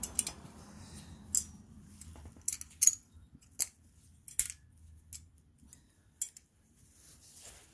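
Thin steel brake-pad hardware clips being pressed onto a disc brake caliper bracket, giving a string of sharp, light metallic clicks at irregular intervals.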